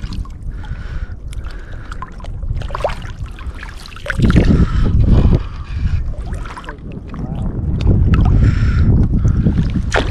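Choppy bay water sloshing around a wading angler close to the microphone, with wind buffeting it. Low rumbling surges come about four seconds in and again through the last two or three seconds.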